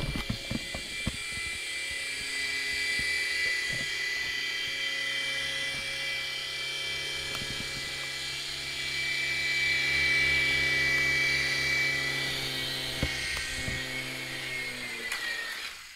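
Micro 3-channel RC helicopter's small electric motors and coaxial rotors whining steadily in flight, growing louder around the middle. Near the end the whine slides down in pitch as the motors spin down and stop.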